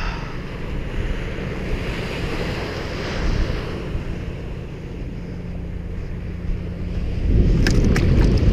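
Ocean surf breaking and washing up the beach, with wind buffeting the microphone; the wind rumble grows louder near the end, when a few sharp clicks are heard.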